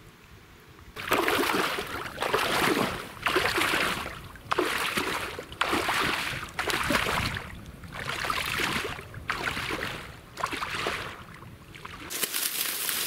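Heavy wading steps in waders through shallow water and soft mud, each step a splash and slosh, about one a second, with a full, heavy sack of fish dragged through the water alongside. Near the end it changes to a crackling rustle of dry reeds underfoot.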